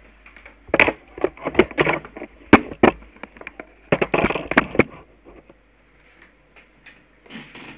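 A rapid, irregular run of loud clicks and crackles very close to the microphone, in two bursts about a second apart.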